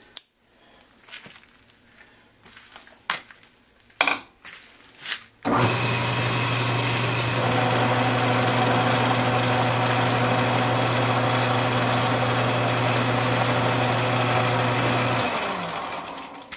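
A few light metallic clicks and knocks from handling the lathe's carriage apron. Then, about five seconds in, the Atlas 618 lathe starts up and runs with a steady motor hum for about ten seconds, and winds down as it is switched off near the end.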